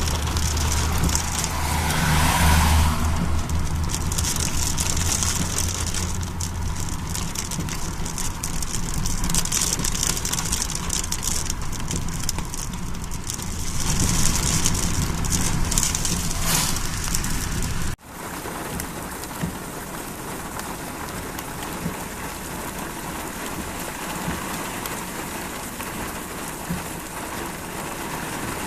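Steady rain falling, with a low hum underneath for the first several seconds. About two-thirds of the way through, the sound cuts abruptly to a quieter, even rain.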